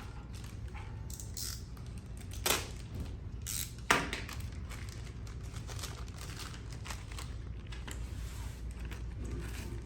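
A small plastic parts packet being handled: crinkling and rustling, with several sharp clicks, the loudest about four seconds in.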